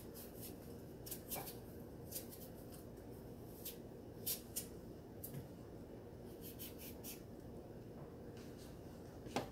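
Kitchen knife scraping and slicing the skin off pieces of unripe papaya held in the hand. It comes as a dozen or so faint, short, irregular scrapes.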